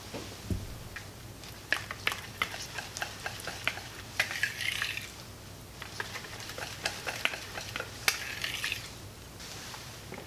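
Wire whisk stirring thick dulce de leche in a glass bowl, as rum is mixed in: its wires click rapidly and unevenly against the glass, with two stretches of sticky, wet swishing.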